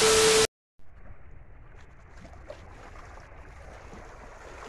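A half-second burst of TV static with a steady beep, an editing transition effect, that cuts off sharply. After a brief moment of silence comes a steady, even hiss of outdoor wind and water with a few faint ticks.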